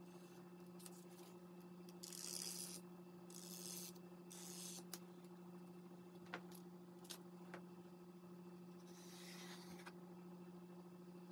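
A comb tool scraped across paper through wet wheat-starch paste and acrylic paint, four short scraping strokes, with a few light clicks in between. A steady low hum sits underneath.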